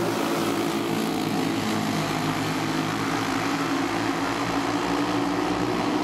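A field of racing dirt karts with Briggs & Stratton Animal single-cylinder four-stroke engines running at speed together in a steady, many-toned drone.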